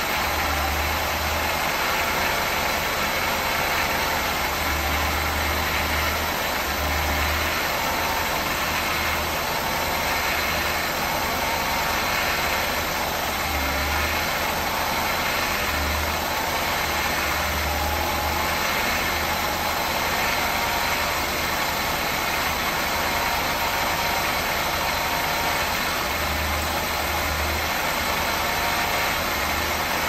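Mercedes-Benz 560 SEC's V8 engine idling steadily with the hood open, running for a vacuum test.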